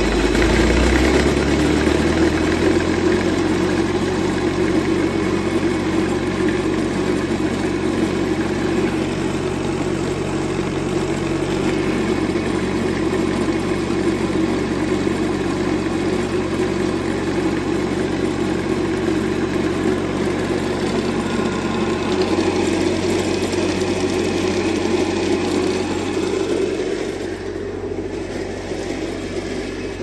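An engine running steadily, its note shifting about two-thirds of the way through and getting a little quieter near the end.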